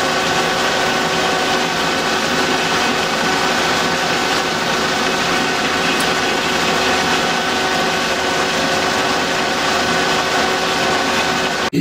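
Colchester metal lathe taking a dry roughing cut on a steel bar with a carbide tool, run without coolant until the work smokes: a loud, steady cutting noise over the lathe's gear whine, with several steady tones. It stops abruptly near the end.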